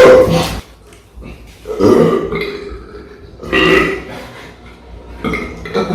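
Men burping loudly, several long burps one after another.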